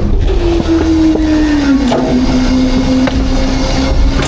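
Hydraulic packer of an Autocar/Heil Freedom half-pack garbage truck running a packing cycle: a steady whine over the truck's low engine rumble, dropping in pitch about two seconds in and then holding. A few faint cracks of debris are heard.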